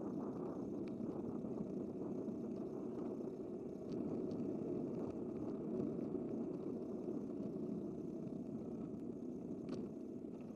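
Steady rushing wind and road noise of a moving bicycle, picked up by a camera mounted on the bike, with a few faint ticks.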